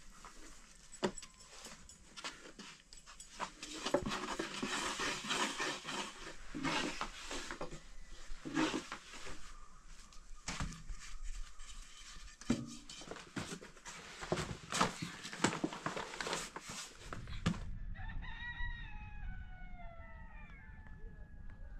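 A rooster crowing once near the end, one long call that falls in pitch. Before it, a run of scattered clicks and knocks.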